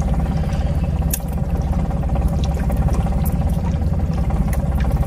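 Boat's outboard motor running steadily with a low hum, and water splashing and dripping against the boat with scattered sharp clicks.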